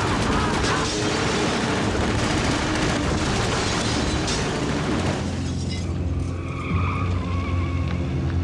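Car engine running hard and tyres skidding as a car speeds off through the street. About five seconds in, the noise cuts off suddenly and low, sustained dramatic music with a deep held note takes over.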